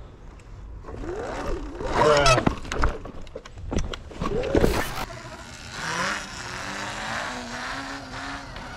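Sur Ron X electric dirt bike riding, its electric motor whining up and down in pitch as the throttle is opened and closed, twice in the first few seconds, then holding steadier. Wind rumbles and buffets on the microphone.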